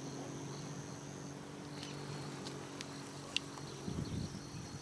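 Insects singing steadily in the background, one high thin trill stopping about a second in, over a low steady hum, with a few faint light clicks near the middle.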